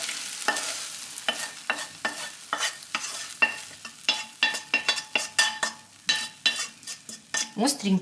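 Wooden spoon scraping and knocking against a frying pan as cooked potato filling is scooped out into a pie crust: a string of irregular scrapes and taps, about two or three a second.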